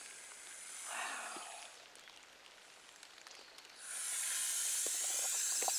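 Eastern hognose snake hissing defensively as it bluffs: a short hiss about a second in, then a longer, steadier one starting a little before four seconds.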